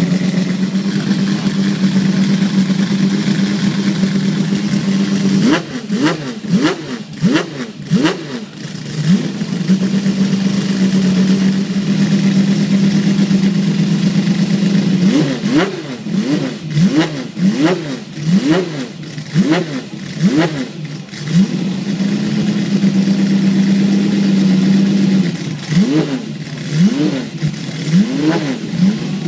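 Jaguar XJR-15's 6.0-litre V12 idling steadily, then revved in three spells of quick throttle blips, each a sharp rise and fall in pitch, settling back to idle in between. The first spell comes about five seconds in, the second around the middle and the third near the end.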